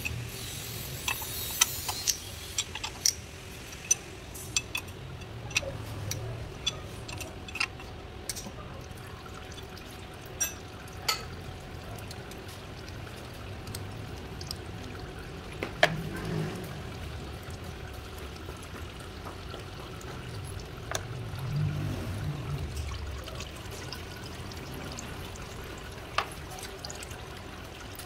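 Sharp metal clicks and clinks of a hand tool and bolts on an automatic transmission's exposed valve body while it is being unbolted, frequent at first and sparser later, over a steady trickle of transmission fluid dripping from the open gearbox.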